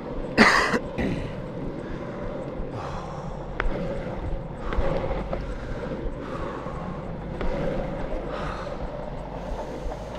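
Longboard wheels rolling on concrete, a steady rumble, with a sharp burst of noise about half a second in and softer whooshing bursts every couple of seconds.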